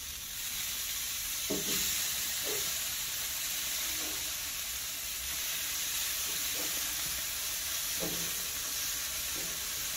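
Red grouper fillets sizzling steadily on the grate of a hot lump-charcoal grill.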